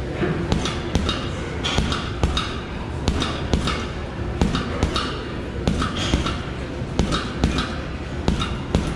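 Fortress boxing gloves punching a heavy bag: a run of sharp thuds, about one or two a second, thrown in quick combinations.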